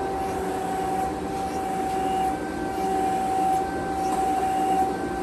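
Harig 12" x 24" hydraulic surface grinder running, a steady machine hum with a constant high whine.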